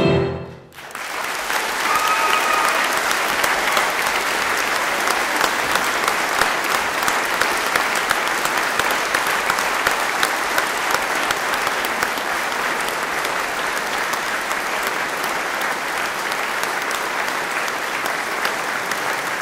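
Audience applause in a large hall: the accompaniment's last chord dies away in the first second, then steady clapping fills the rest, with one short high call from the audience about two seconds in.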